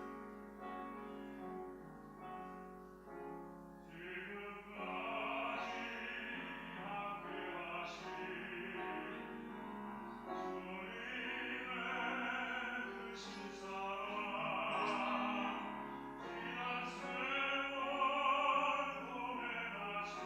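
Baritone singing a solo in operatic style with piano accompaniment. The piano plays alone at first, and the voice comes in about four seconds in, growing louder toward the end.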